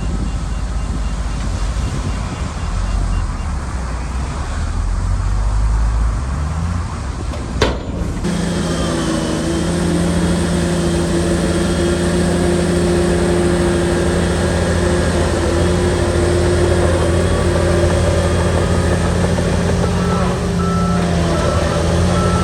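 Heavy diesel engine of a Shantui crawler bulldozer running steadily under work, with one sharp click about a third of the way in. After the click the engine holds a steady droning note. A reversing alarm starts beeping near the end.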